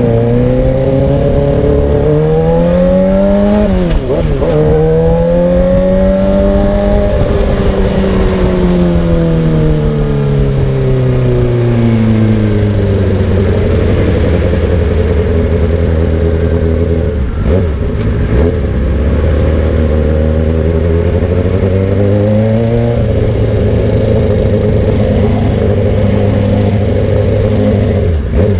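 Suzuki GSX-R600 inline-four engine heard through a loud exhaust, ridden at moderate revs. The engine speed dips sharply and climbs back about four seconds in, rises and falls slowly over the next several seconds, holds steady and low through the middle, and picks up again near the end.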